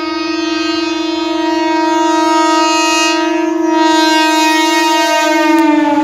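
Indian Railways MEMU electric train's horn sounding one long, continuous blast as the train approaches, getting slightly louder; near the end the pitch drops as the train passes.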